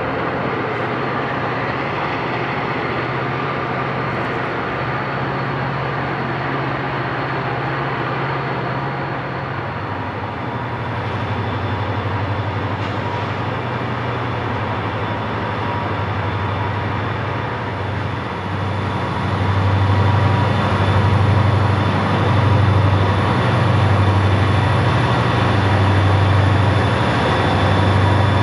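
Three EMD diesel-electric locomotives, turbocharged 16-cylinder 645 engines, working hard as they lug a heavy train up a steep grade. The engines run steadily, then grow louder with a pulsing beat about once a second as they draw closer.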